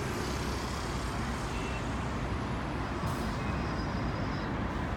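Steady road traffic noise: motor vehicles running past with a constant low rumble of engines and tyres.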